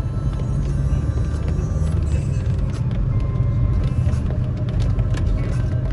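Steady low rumble of a car's engine and tyres heard from inside the cabin while driving, with a few faint ticks mixed in.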